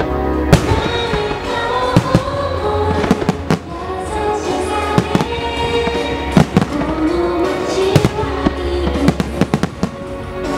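Aerial firework shells bursting, a string of sharp bangs roughly once a second, over music with long held notes.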